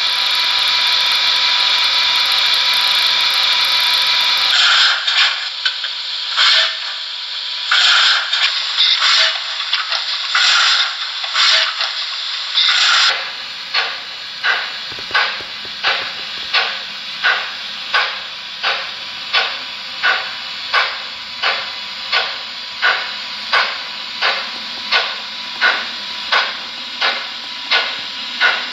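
Sound of a Märklin Ce 5/6 H0 model steam locomotive: a steady hiss of steam, then irregular hissing chuffs as it gets going. From about a third of the way in, these settle into slow, even exhaust beats at about one and a half a second.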